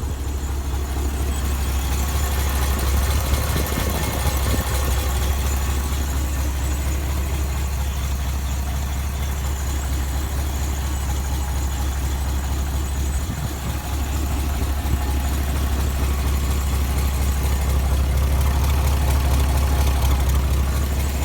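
International Harvester 1600 truck's engine idling steadily.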